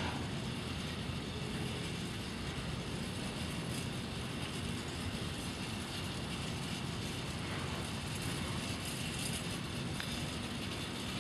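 Container freight train's wagons rolling past, a steady noise of steel wheels on the rails.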